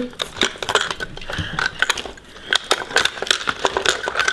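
Small diecast toy cars clicking and clattering against a hard plastic carry case as they are handled and pushed into its slots: a run of irregular sharp clicks.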